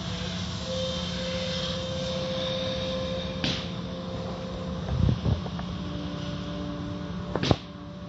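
Automatic car wash heard from inside the car: water spraying and pouring over the windshield while the wash machinery runs with a steady hum. A few knocks sound through the middle, and a sharper thump comes near the end.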